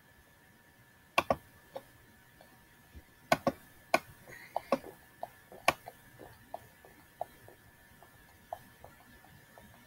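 Computer mouse clicking at irregular intervals, short sharp clicks that start about a second in and come quickest in the middle.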